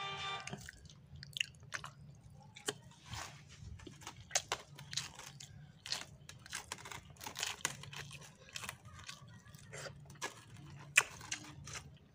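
Close-up chewing and eating sounds of someone eating grilled fish and rice by hand: irregular small clicks, smacks and crunches.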